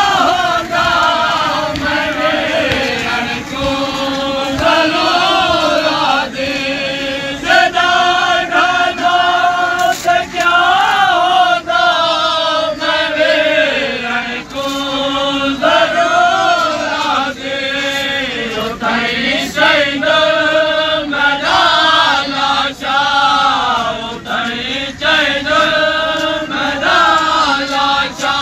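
Male voices chanting a noha, a Shia lament, in a continuous sung melody that repeats phrase after phrase.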